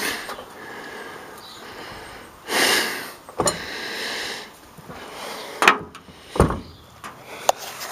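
Handling noises as things are moved about: a brief rush of scraping or sliding about two and a half seconds in, then several separate knocks and clicks, with one low thump a little after the middle.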